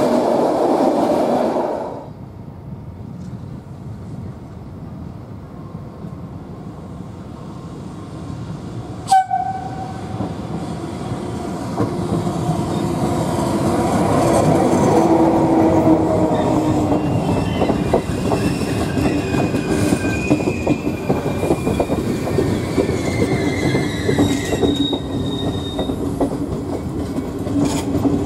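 Train noise that drops away sharply about two seconds in. About nine seconds in comes a brief sharp sound, after which a train comes through the station: wheels clacking over rail joints and squealing with several high, slowly falling tones, growing louder toward the middle.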